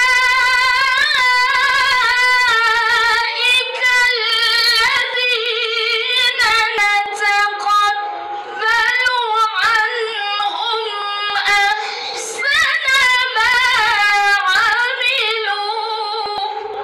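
A woman's voice reciting the Qur'an in the melodic, chanted style of tilawah, amplified through a handheld microphone. Long held notes waver in ornaments, with two short breaks for breath, about two-thirds of the way through and again soon after.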